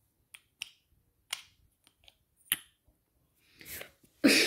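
A few short, sharp clicks and taps from handling a metal rechargeable torch and its battery, then a louder rustle of handling near the end.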